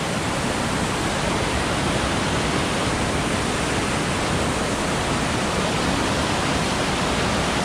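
Fast mountain creek running high, whitewater rushing over rocks and logs in a steady, unbroken rush.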